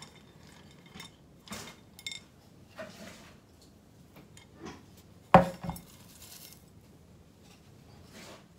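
Ceramic bonsai pot being handled, with scattered light clinks and knocks and one sharp knock about five seconds in, followed by a brief rustle of gritty bonsai substrate.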